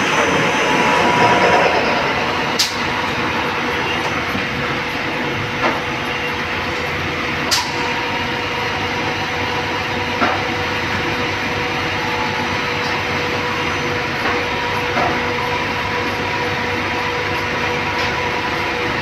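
CNC turning lathe running, its chuck spinning at speed under coolant spray with a drill in the turret at the workpiece: a steady machine noise with a constant whine, broken by a few sharp ticks.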